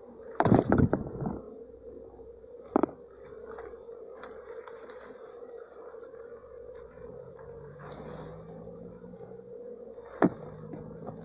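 Steady buzzing hum of a honeybee swarm settled in a termite mound, with loud rustling and knocks close by about half a second in and sharp single clicks near 3 s and near 10 s.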